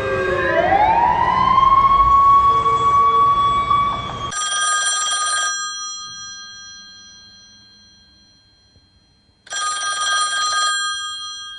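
A siren-like wail rises and holds a steady pitch, cut off about four seconds in by a telephone bell. The bell rings twice, about five seconds apart; each ring lasts about a second and rings on as it fades.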